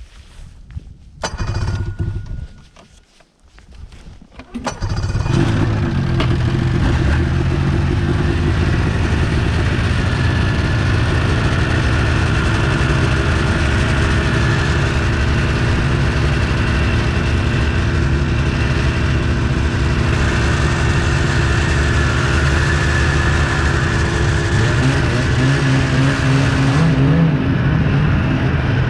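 Ski-Doo snowmobile engine starting: a brief first burst about a second in, then it catches about four and a half seconds in and idles steadily. Near the end the pitch rises as the throttle opens and the sled pulls away.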